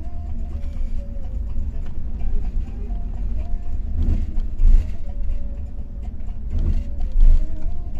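Steady low rumble of a moving bus heard from inside the cabin, with two louder bumps, about four and a half and seven seconds in.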